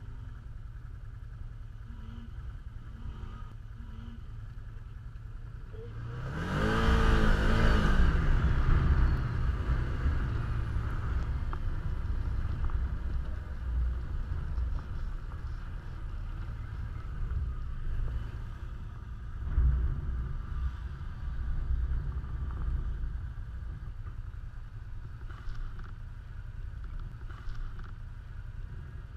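Side-by-side and ATV engines running in a sand pit under a steady low rumble. About six seconds in, a loud engine rev rises and then falls in pitch, and a second, smaller surge of throttle comes around twenty seconds in.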